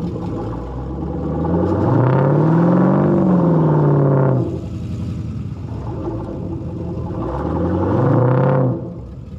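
Recovery rig's engine revving under load while towing a stuck pickup's front end around. The revs climb to a peak about three seconds in and fall away, then rise again briefly near the end and cut off.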